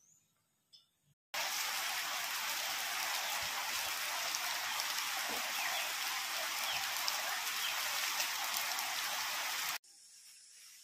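A steady, even rushing hiss like heavy rain, which starts suddenly about a second in and cuts off sharply near the end.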